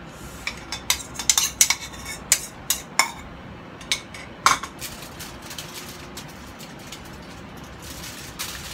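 A spoon clinking and scraping against a ceramic bowl in a quick run of sharp clicks as marinade is spooned out over a chicken, followed by one louder clack about four and a half seconds in as the bowl is put down.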